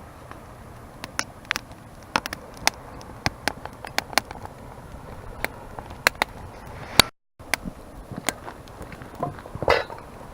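Wood fire crackling, with irregular sharp pops over a low steady background. The sound cuts out for a moment about seven seconds in.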